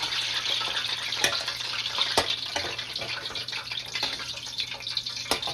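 Hush puppies deep-frying in hot oil in a wok: a steady sizzle with a few sharp clicks.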